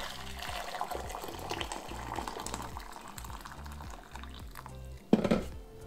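Boiling water pouring from a stainless steel electric kettle into a glass measuring cup, a steady splashing fill, over quiet background music. A clunk comes near the end.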